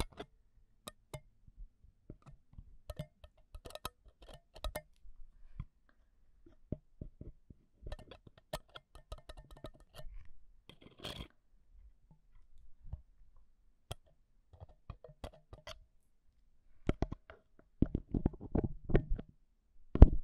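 Metal ear pick scraping and tapping inside the grille of a handheld recorder's microphone, giving close, irregular clicks and scratches. Near the end the rubbing grows denser and louder, with a low rumble, and a sharp click lands just before the end.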